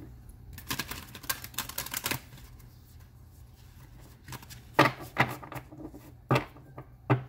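A deck of oracle cards being shuffled by hand: a quick run of crisp card flicks, then about four sharp taps of the deck on the wooden table in the second half.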